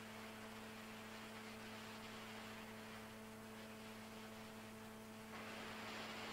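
Faint tape hiss over a steady mains hum from a blank stretch of cassette tape playing before the music begins; the hiss grows a little louder about five seconds in.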